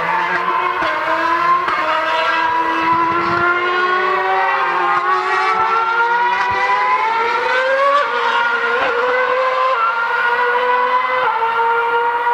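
2013 Formula One cars' 2.4-litre V8 engines running at high revs on track, with more than one car heard at once. The pitch climbs through each gear and drops sharply at the upshifts, several times over.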